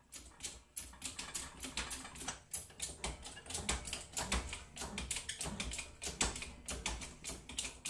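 Keyway broach being pushed through the bore of a small steel gear in a bench press: an irregular run of sharp metallic clicks and ticks, several a second, as the broach teeth cut the keyway.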